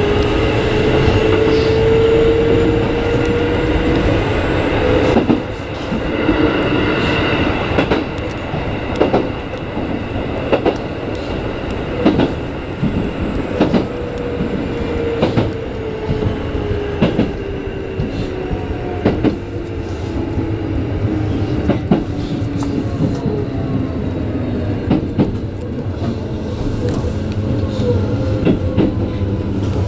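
Keikyu 1500-series electric train running, heard from inside the driver's cab: wheels clicking over rail joints every second or two over a steady rumble. A motor whine rises in pitch over the first few seconds, and a lower tone falls slowly through the middle.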